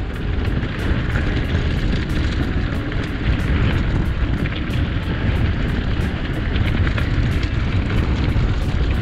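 Wind rumbling and buffeting on an action camera's microphone on a moving mountain bike, a loud steady rush with no engine or voice in it.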